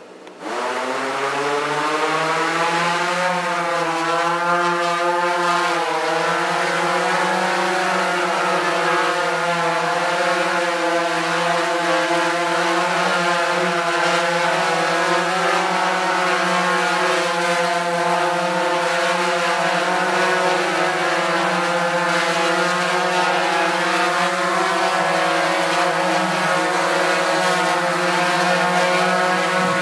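PowerVision PowerEgg quadcopter's four motors and 10.5-inch propellers spinning up about half a second in, the pitch rising for two or three seconds as it lifts off. It then holds a loud, steady buzzing hum while hovering, the pitch wavering slightly as the drone shifts and corrects its hover.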